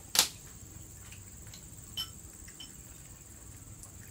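A sharp knock just after the start, then a single short clink of a spoon against a bowl at about two seconds, over a steady high-pitched insect drone.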